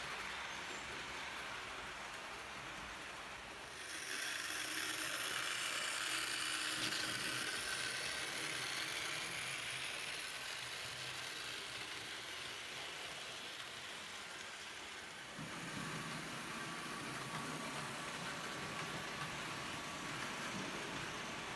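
H0-scale model trains running along the track: the rolling sound of wheels on rails and the running of the locomotive motors. It gets louder and brighter about four seconds in, then shifts to a lower rumble about fifteen seconds in as a different train passes.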